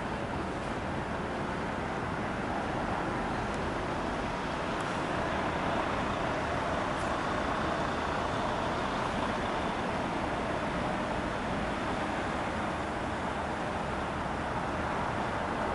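Steady jet engine noise from a Boeing 777, swelling a little about a third of the way in, with a faint high whine.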